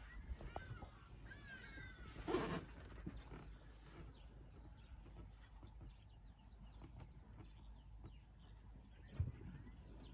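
Faint bird calls, short chirps repeating throughout, over quiet bush ambience. A brief rushing noise comes about two seconds in, and a soft low thump near the end.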